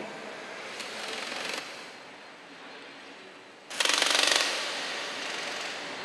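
Multi-needle embroidery machine stitching: rapid, regular needle strokes in two bursts, a short one about a second in and a louder one around four seconds in, quieter running in between.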